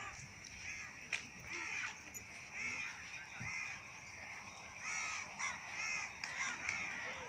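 Crows cawing repeatedly, many short calls following one another, some overlapping.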